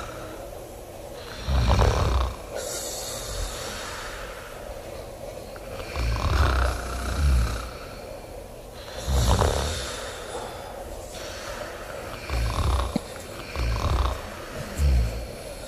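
A sleeping young woman snoring loud, with deep snores every three to four seconds and three shorter snores closer together near the end.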